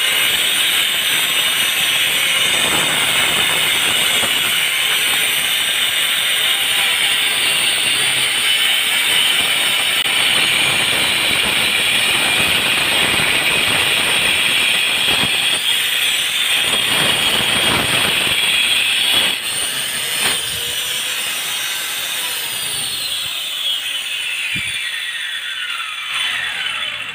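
Handheld electric angle grinder with a cutting disc cutting a groove into a brick wall: a loud, steady high whine with gritty grinding. About two-thirds of the way through it runs more quietly, and near the end its whine falls in pitch as the disc winds down.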